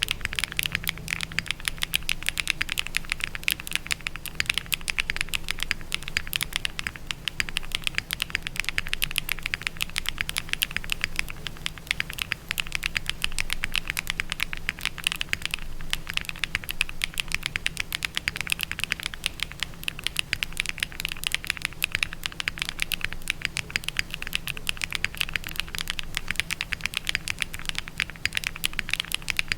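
Continuous fast typing on a Neo60 CU mechanical keyboard with Keygeek Sea Salt Taro switches, a polypropylene plate, full foam and KBS 1950s doubleshot ABS keycaps: a dense, even stream of keystroke clacks. A faint steady low hum lies underneath.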